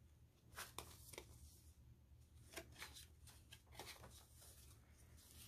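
Faint rustling and a few soft taps of paper pages and cards in a handmade journal being handled.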